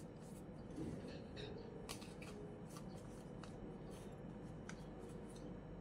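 Faint, scattered clicks and light rustles of makeup items being handled, such as an eyeshadow palette and brushes, over a steady low room hum.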